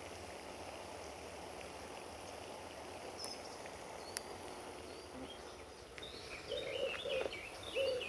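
Birds calling over a steady outdoor hiss. From about six seconds in come repeated short, low, hooting notes, alongside higher chirps.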